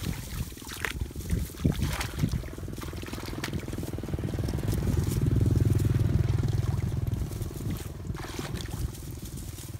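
Feet wading and sloshing through shallow muddy water among rustling brush, with short splashes and knocks early on. A low motor hum swells to its loudest around the middle and fades again.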